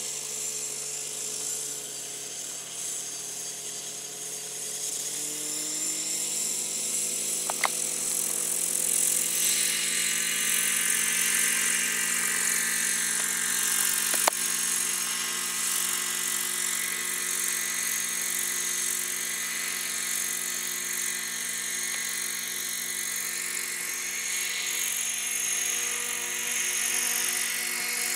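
Glow-fuel (nitro) RC helicopter engine and rotor running steadily. The pitch rises over the first few seconds as the rotor spools up, and the sound grows louder about nine seconds in as the helicopter lifts into a hover. Two short sharp clicks come at about eight and fourteen seconds in.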